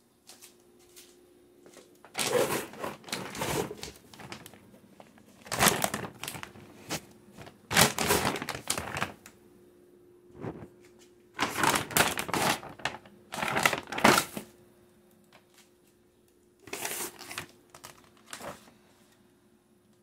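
Plastic bags crinkling and rustling as they are handled, in about seven bursts of up to a second or so each, with quiet gaps between.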